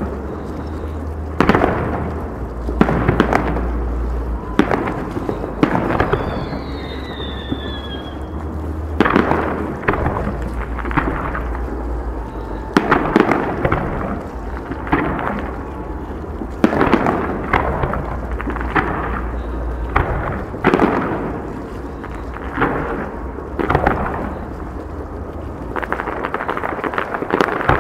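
Fireworks display: about a dozen aerial shells bursting, loud booms a second or two apart, each ringing out after the blast, with a falling whistle about a quarter of the way in.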